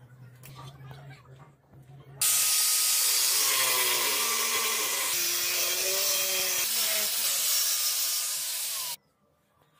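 Electric power tool running for about seven seconds, with a loud hiss and a motor pitch that wavers as it works. It starts suddenly a couple of seconds in and cuts off abruptly near the end.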